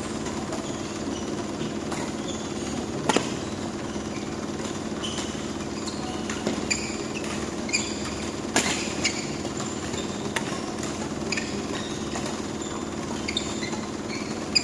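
Badminton rally: several sharp racket hits on the shuttlecock at irregular intervals, with brief high squeaks of shoes on the court. Under them runs a steady hum from the hall's ventilation fans.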